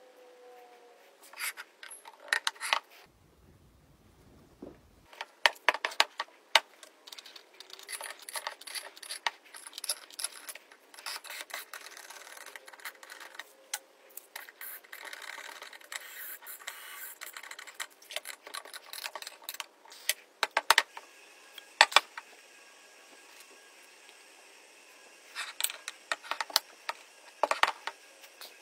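Machined aluminium parts being handled and screwed together on a wooden workbench: scattered clicks, light metal knocks and scrapes. There are stretches of rapid clicking while a hand screwdriver turns screws.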